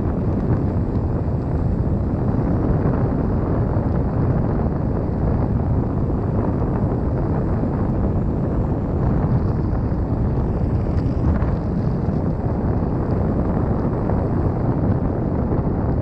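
Steady wind rush buffeting the microphone, mixed with tyre noise on asphalt, from a Begode (Gotway) RS electric unicycle riding at a constant 36–37 km/h.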